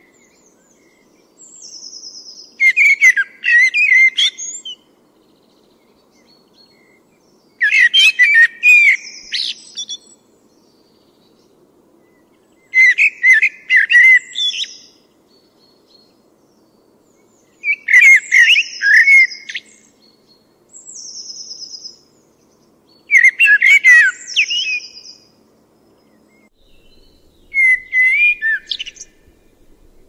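A songbird singing a repeated song of about six phrases, one roughly every five seconds. Each phrase has a high buzzy note followed by a quick jumble of warbled notes.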